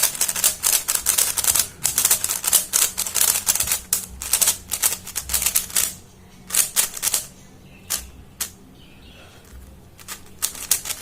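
Plastic pieces of a YJ Yuhu V2M megaminx clicking as it is turned quickly: a fast, dense run of clacking turns for about six seconds, then only a few scattered turns.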